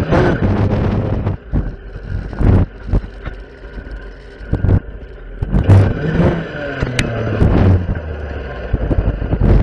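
Stihl FS 460 clearing saw's two-stroke engine revving up and dropping back again and again as its blade cuts through young spruce and undergrowth.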